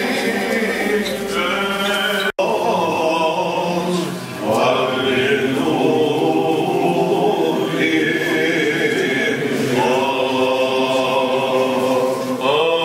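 Unaccompanied Byzantine chant of a Greek Orthodox service: voices singing long held notes that step from pitch to pitch over a low steady drone. The sound cuts out for an instant about two seconds in.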